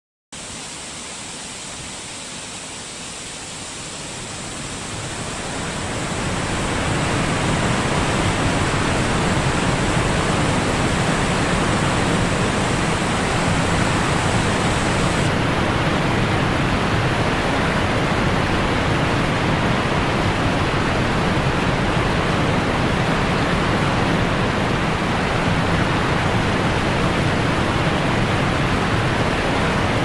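Waterfall rushing as a steady, even wash of falling water. It starts quieter and swells to full level over the first several seconds, and a thin high hiss within it stops about halfway through.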